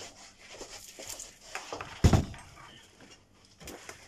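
Rummaging and handling noises: rustling, light clicks and knocks as a computer power supply with its bundle of cables is fetched and carried back to the bench, with one sharp, loud thump about two seconds in.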